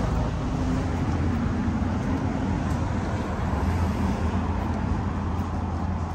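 Steady city traffic noise: a continuous low rumble of cars on a wide multi-lane street.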